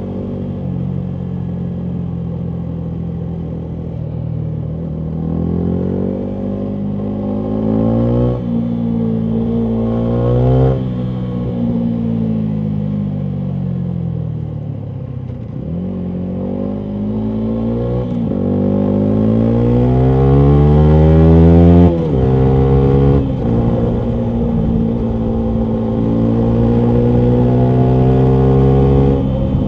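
2019 Yamaha MT125's single-cylinder four-stroke engine through a full Akrapovic exhaust, pulling up through the gears in rising sweeps, with a sharp drop in revs at each shift. In the middle it winds down as the throttle is closed, then climbs through the gears again and holds a steadier pace near the end.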